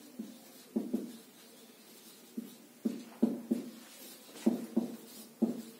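Marker pen squeaking on a whiteboard in a string of about a dozen short, irregular strokes as a word is handwritten.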